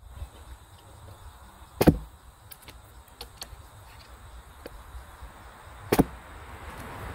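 Two test shots from a compound bowfishing bow, about four seconds apart: each a single sharp snap of the bowstring on release, merged with the arrow striking a foam block target. The shots are for checking arrow flight while tuning the nock point, and they fly nock high.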